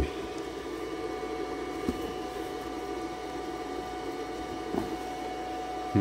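Steady machine hum with a few thin whining tones, from a battery charger's cooling fan running in the shop while the truck's electric fuel pump is commanded on. A light click about two seconds in.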